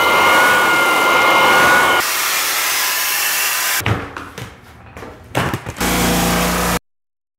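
Floor sanders running in quick cuts: the first with a steady high whine, later a drum floor sander with a low hum. Between them come a few knocks and scrapes as a strip is pulled up along the wall. The sound cuts off suddenly about a second before the end.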